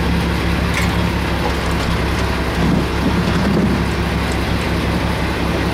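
Steady rush of wind and sea noise over the low, even hum of a boat engine running.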